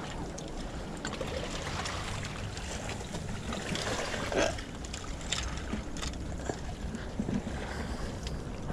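Wind rumbling on a body-worn action camera's microphone on an open shoreline, with a few light knocks and rustles from the wearer moving about.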